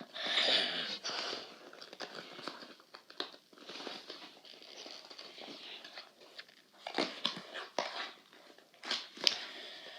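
Packaging crinkling and tearing as a small box is pried open by hand, loudest in the first second, with a few sharp clicks around seven seconds in and near the end.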